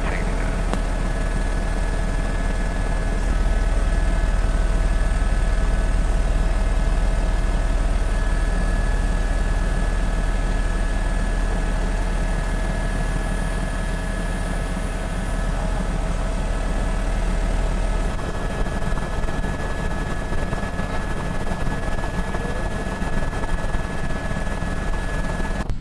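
Helicopter running steadily, heard from aboard: a steady low throb with several steady whining tones above it.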